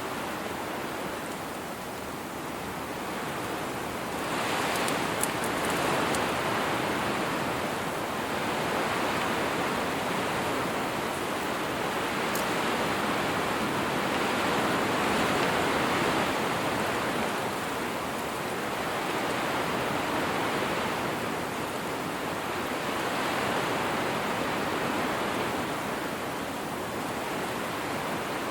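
Wind blowing steadily, a rush of noise that swells and eases in gusts every few seconds.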